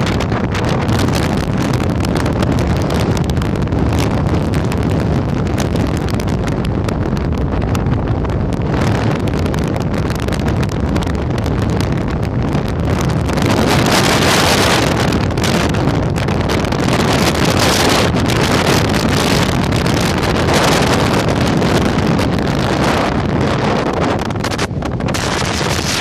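Strong wind blowing across the microphone: a loud, steady rush that swells in stronger gusts about halfway through.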